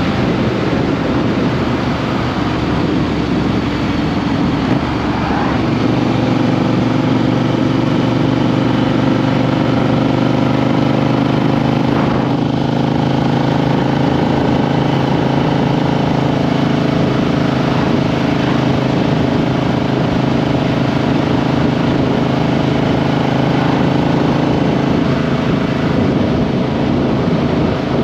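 Triumph Street Twin 900's 270-degree-crank parallel-twin engine running under way, heard from a microphone under the seat. Its pitch climbs a little about five seconds in, then holds fairly steady at cruising speed.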